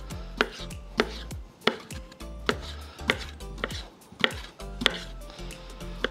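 Serrated kitchen knife slicing smoked sausage into rounds on a wooden chopping board: a regular knock of the blade meeting the board about every two-thirds of a second, about ten cuts.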